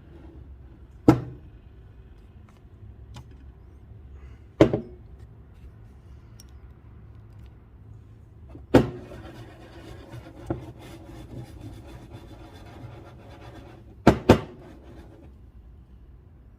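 Metal milk jug knocked on the counter five times, each knock with a short ringing clang; the last two come in quick succession near the end. Between about nine and fifteen seconds a soft hiss sits over a low steady hum.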